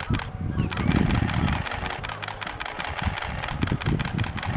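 Snowplow locomotive pushing through deep snow: a steady low engine rumble mixed with the noise of snow being thrown aside by the plough.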